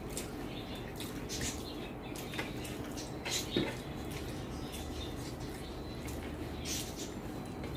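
Eating sounds: soft chewing with small mouth clicks and smacks, scattered irregularly.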